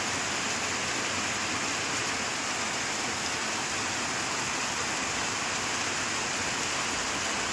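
Heavy rain pouring steadily, a dense even hiss of drops falling on the ground and leaves.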